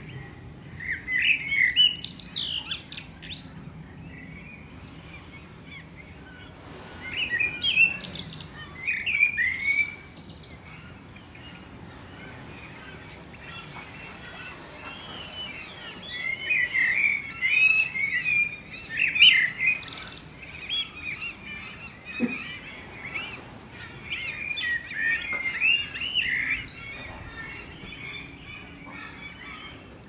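Eurasian blackbird singing: four phrases of low, fluting warbles, each running into a higher, squeaky twitter, with pauses of a few seconds between them.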